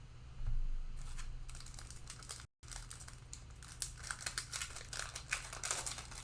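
Plastic wrapper of a football trading-card pack being torn open and crinkled, an irregular crackling rustle that grows denser in the second half. The audio cuts out briefly about two and a half seconds in, over a steady low hum.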